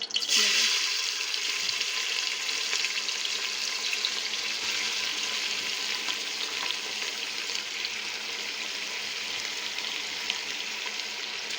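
Onions dropped into hot oil in a pressure cooker: a sudden loud sizzle that settles into steady frying with small crackles.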